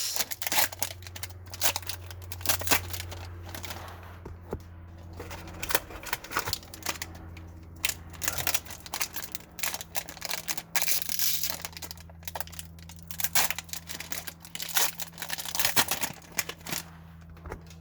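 Trading-card pack wrappers being torn open and crumpled, an irregular run of crinkling and tearing bursts, over a steady low hum.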